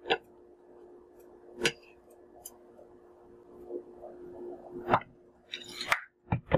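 Metal spoon knocking and scraping in a jar of solid coconut oil as spoonfuls are scooped out and dropped into an enamelled cast-iron pot: a few sharp clicks spread through, a short scraping rustle, then two quick knocks near the end, over a steady low hum.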